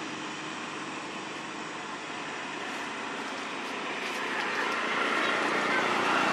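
Steady outdoor background noise that grows louder from about four seconds in.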